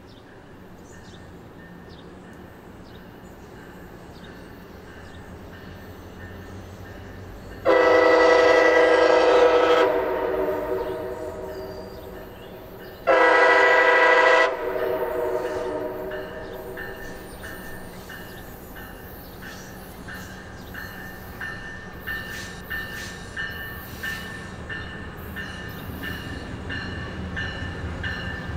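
MARC commuter train's diesel locomotive sounding its horn twice, a long blast about eight seconds in and a shorter one about five seconds later, each echoing away. The engine's rumble grows as the train approaches, and the wheels click over the rails in the last several seconds.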